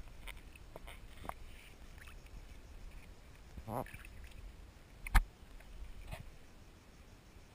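Hands splashing and swishing through shallow water over sand in a few separate strokes, the loudest a sharp slap about five seconds in.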